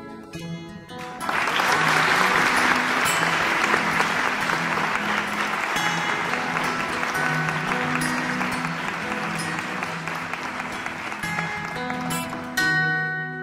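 Applause starts about a second in and runs for about eleven seconds over background music played on acoustic guitar.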